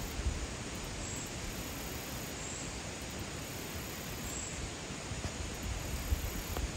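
Steady outdoor hiss, with wind rumbling on the microphone in bumps near the start and again near the end.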